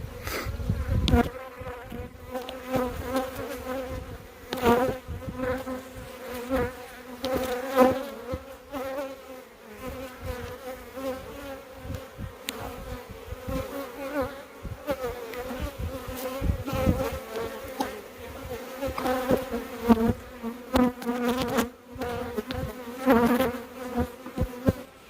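Honeybees swarming around an open hive: a steady, dense buzzing hum that swells and fades as bees fly close, with frequent short knocks throughout.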